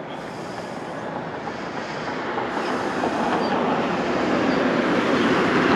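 A road vehicle approaching on a highway: engine and tyre noise grows steadily louder as it draws near.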